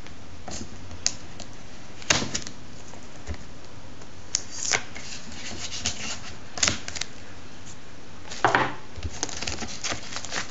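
Fingers picking at the plastic wrapping of a packet of art cards: scattered sharp clicks, taps and crinkles in small clusters, over a steady hiss.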